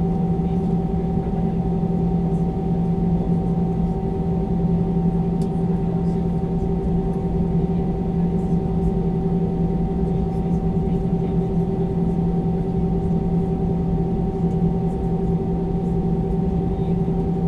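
Inside the cabin of an Airbus A320-214 taxiing: its CFM56-5B engines at idle give a steady drone with a low hum and higher steady tones, over a low rumble from the airframe rolling on the taxiway.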